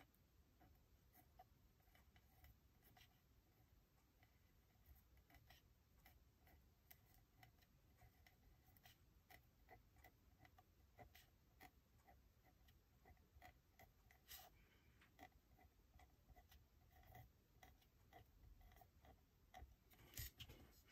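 Near silence, with faint, irregular small ticks and scratches from hand work on paper.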